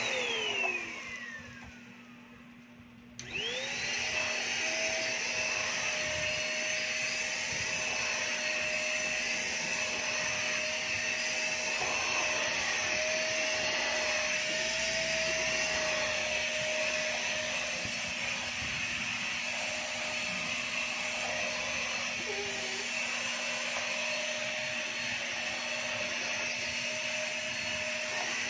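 Stick vacuum cleaner switched off, its motor whine falling away, then switched back on about three seconds in, whining up to speed and running steadily.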